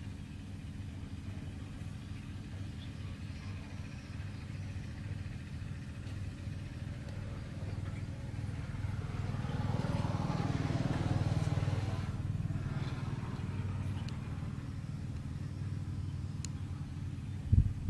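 Steady low background rumble that swells louder for a few seconds around the middle, then fades back down.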